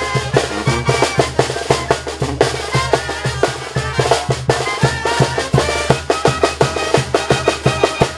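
Mexican banda (brass and wind band) playing live: a fast, steady beat of bass drum and snare under a melody of wind instruments.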